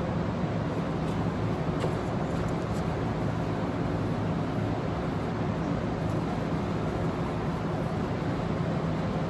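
Steady machine noise with a constant low hum, the sound of a motor running, with a few faint light ticks in the first few seconds.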